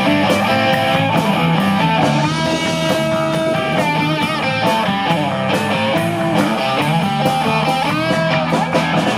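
Rock band playing live: electric guitars over a drum kit in a steady beat.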